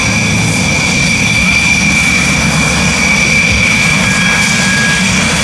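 Dassault Rafale fighter jets taxiing on the runway, their twin Snecma M88 turbofans running at steady power: a loud, steady high-pitched whine over a low rumble.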